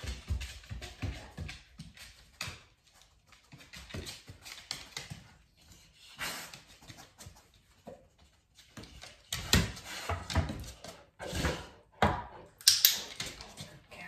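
A dog searching kitchen cupboards for a hidden scent, sniffing and nosing at the doors and floor, with knocks and clatters against the cupboards. The knocks are loudest and most frequent in the last few seconds.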